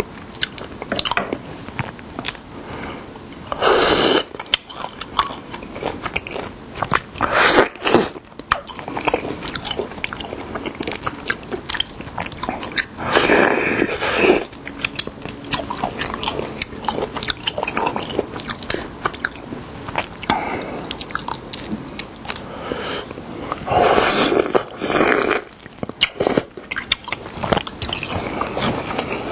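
Close-miked chewing and crunching of young-radish (yeolmu) bibimbap, with about four loud slurps of seafood doenjang soup from a spoon.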